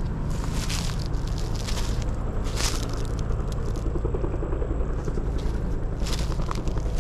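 Footsteps crunching and scraping through dry grass and brush, irregular steps with a lull in the middle, over the steady low drone of a helicopter.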